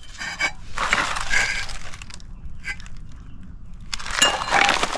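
Plastic wrap and cardboard crinkling and rustling as a new brake rotor is handled and set on top of the old one. There are two louder bursts, about a second in and again about four seconds in.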